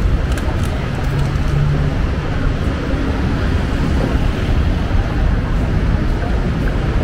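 Busy city avenue ambience: a steady low rumble of passing traffic mixed with indistinct voices of passers-by.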